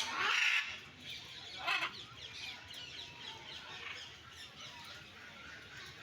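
Mixed aviary birds calling: a loud call in the first half-second and another just under two seconds in, over continuous chirping of many smaller birds.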